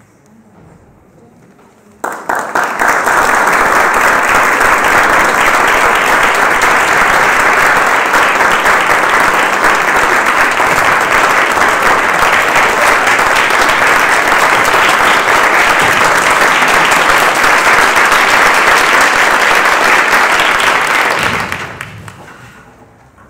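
Audience applause, starting suddenly about two seconds in, dense and even, then dying away near the end. It welcomes the string players as they come onto the stage.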